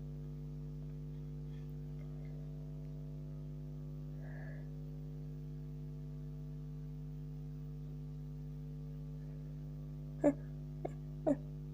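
Steady electrical hum, then near the end three short, sharp gasping breaths from a woman with a cold as a sneeze builds up.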